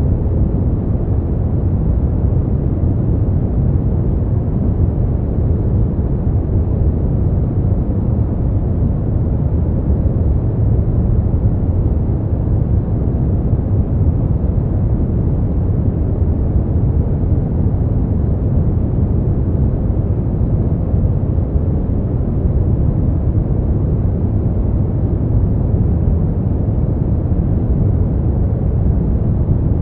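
Smoothed brown noise: a steady, deep rumbling hiss with most of its weight in the bass and the highs rolled off, unchanging throughout.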